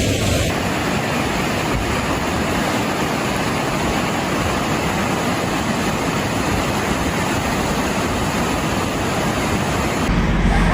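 Steady, even rushing of fast-moving floodwater. A low hum comes in near the end.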